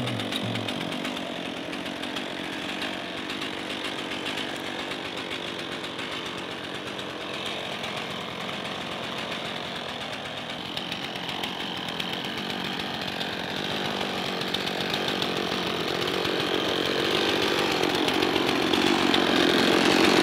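Stihl chainsaw's two-stroke engine idling steadily while it is carried, not cutting, growing louder over the last several seconds.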